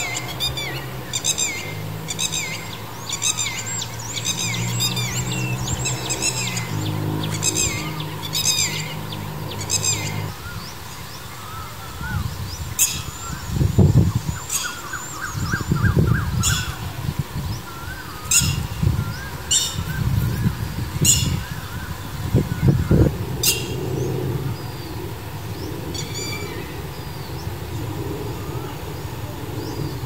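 Red-wattled lapwing giving sharp, high, falling calls over and over, about two a second for the first ten seconds, then more spaced out. Low rumbling bursts come in the middle stretch.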